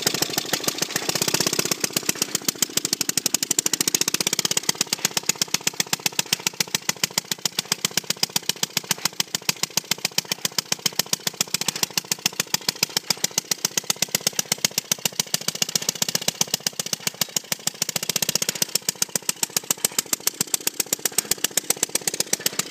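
The 2-horsepower, water-cooled two-stroke Evinrude engine of a circa-1920 Merry Garden Auto Cultivator running steadily on its own, each firing a sharp, evenly spaced pop.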